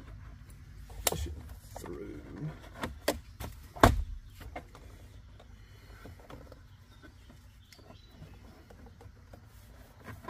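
Hands-on handling noise: a few knocks and clicks, the loudest about four seconds in, then softer rustles and small ticks.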